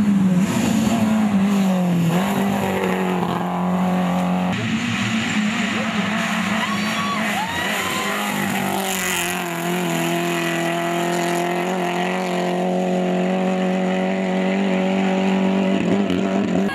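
Rally car engines running at high revs as the cars pass along a dirt stage, heard across several cuts. The engine note dips about two seconds in, changes abruptly a couple of seconds later, and then holds a steady pitch for a long stretch.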